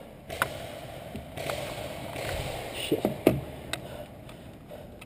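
Clicks, knocks and scrapes from an airsoft rifle and gear being handled, with a cluster of sharp knocks about three seconds in, the loudest of them near the middle of the cluster.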